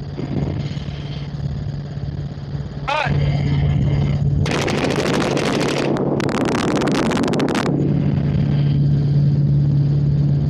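Full-auto gunfire from a rifle fired out of a helicopter: two long rapid bursts with a brief break between them, over the helicopter's steady drone.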